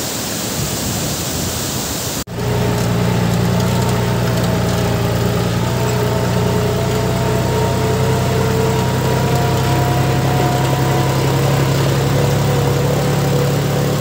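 Rushing stream water. About two seconds in it cuts off abruptly, and a steady, louder motor-like drone takes over: a low hum with several held higher tones that drift slightly in pitch.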